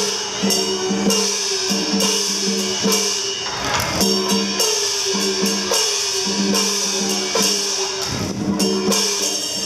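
Chinese percussion music for the lion dance: frequent beaten strokes and cymbal clashes, with gongs whose pitch falls after each stroke, over steady held notes.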